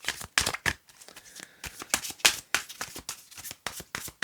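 Tarot deck being shuffled by hand: a quick, irregular run of card flicks and clicks.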